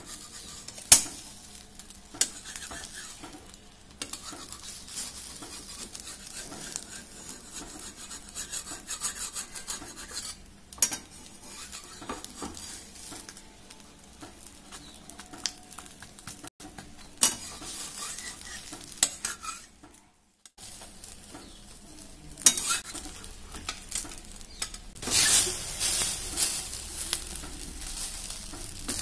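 Metal spatula scraping and tapping against a metal kadai as a thin egg omelette is rolled up, over the light sizzle of egg frying in mustard oil. Sharp taps come every few seconds, and the scraping gets busier and louder near the end.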